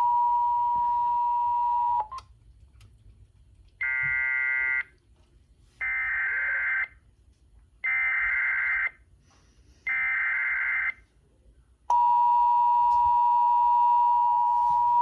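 NOAA Weather Radio steady warning alarm tone cuts off about two seconds in. After a short pause come four buzzy, warbling bursts of EAS SAME digital header data, each about a second long and a second apart. Near the end the steady alarm tone starts again, marking a new alert.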